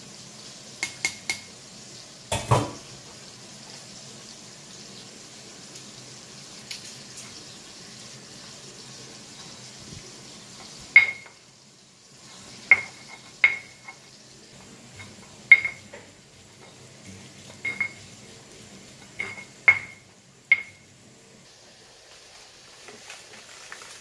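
Stone pestle knocking into a stone mortar (Indonesian cobek and ulekan) as chillies, shallots and garlic are pounded for sambal: about ten sharp knocks, each with a short ringing clink, coming roughly once a second in the second half. Earlier there are a few light clicks and one heavier knock as the ingredients go into the mortar.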